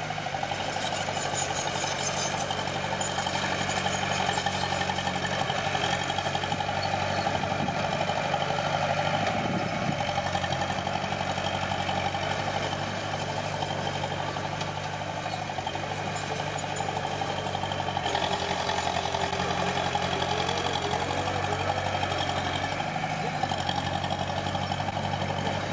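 Diesel engine of a piece of earth-moving machinery running steadily.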